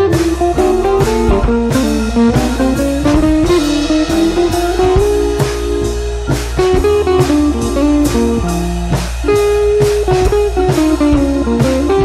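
Background music: an electric-guitar-led blues-rock track with a drum kit keeping a steady beat.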